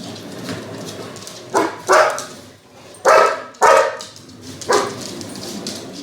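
A dog barking five times in short, loud barks, two close together, then two more, then one last bark, over a steady background hiss.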